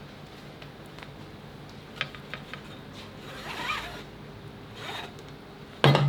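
Harness webbing being pulled and threaded through the slots of a metal dive backplate: a few small clicks about two seconds in, a longer rasping pull near the middle, and a loud knock just before the end.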